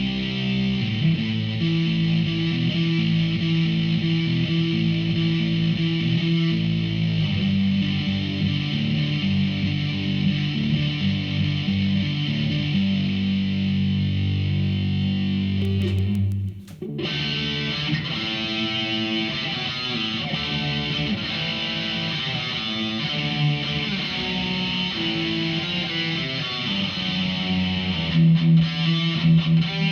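Electric guitar played through a Behringer V-Amp Pro amp-modelling processor on a distortion sound: held distorted chords and notes, a short break about sixteen seconds in, then playing resumes, with short choppy chords near the end.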